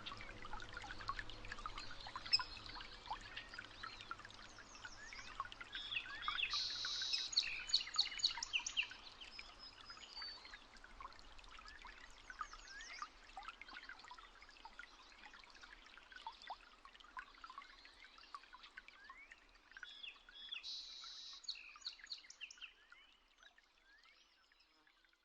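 Birds chirping and singing together, a steady mix of many short calls and whistles, with a louder, rapid song phrase twice, about 7 seconds in and about 21 seconds in. The birdsong fades out near the end.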